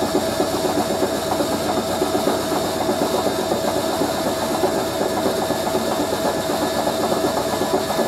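Hoover A3060 Electronic 1100 washing machine's drum turning during its final spin sequence, a steady mechanical rumble with a constant whine. The rumble comes from its taper drum bearings, which run with a bit of play rather than being worn out.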